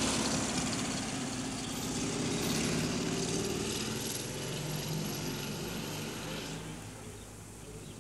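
A passing car's engine and tyre noise on the street, loudest at first and dying away about two-thirds of the way in.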